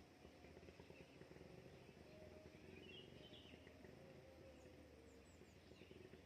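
Very faint outdoor ambience with distant small-bird calls: a brief chirping cluster near the middle and a few short, high, falling notes soon after, over a steady low background noise.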